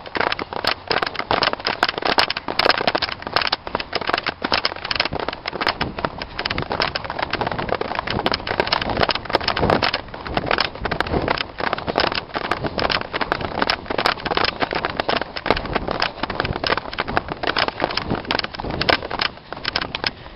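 Wind buffeting and rough handling noise on the microphone of a camera carried at speed, a dense crackling rumble with rapid knocks that cuts off suddenly near the end.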